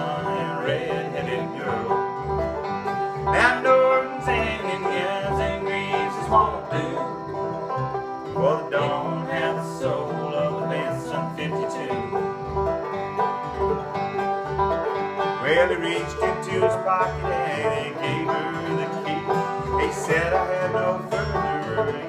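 Acoustic bluegrass trio of five-string banjo, acoustic guitar and upright bass playing an instrumental break without vocals. Plucked bass notes keep a steady pulse under the picked banjo and strummed guitar.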